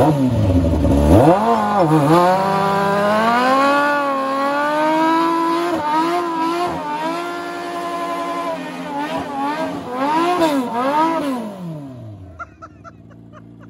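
Off-road mini buggy's engine revving hard, its pitch swinging up and down over and over, then dropping away and fading near the end.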